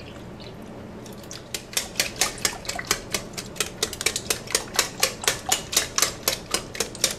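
Milk and cream poured softly into a glass bowl, then a wire whisk beating the custard mixture by hand, its wires clicking against the glass about five times a second.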